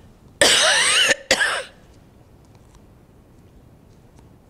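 A person coughing twice: a harsh, loud cough about half a second in, followed right after by a shorter one.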